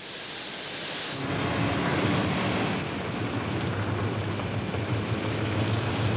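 Austin Metro heard from inside the cabin while it is driven on a wet road: a steady low engine hum under the hiss of tyres and water spray. A high hiss is heard first, and the hum comes in about a second in.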